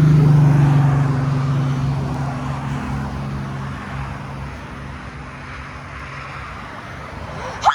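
A car driving past close by, its engine hum and tyre noise loudest at the start and fading over several seconds as it moves away. Near the end there is a short rising squeak.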